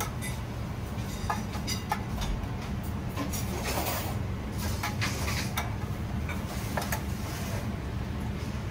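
Steady low machine hum of the kitchen, with scattered light clicks and brief scrapes of a spoon and utensils against a porcelain plate and a metal sauce tray.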